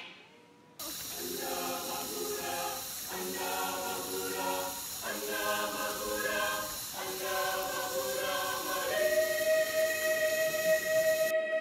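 Choral music: voices singing sustained chords, starting after a short silence and changing every second or two, ending on a long held chord.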